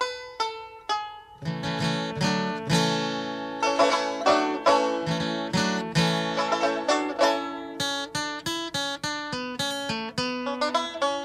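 Instrumental music on plucked strings in a bluegrass-like style. It starts as single picked notes, fills out into fuller chords about a second and a half in, and returns to quick picked notes near the end.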